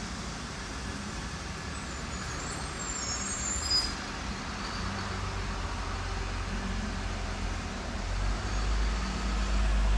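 A school bus engine running low and steady as the bus pulls up, its rumble growing louder over the last few seconds.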